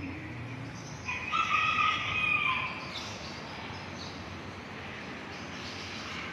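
A rooster crowing once, a single call that starts about a second in and is held for about two seconds, over steady outdoor background noise.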